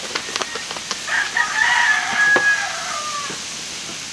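A rooster crowing once: a long call starting about a second in and falling in pitch at its end, after a few sharp clicks.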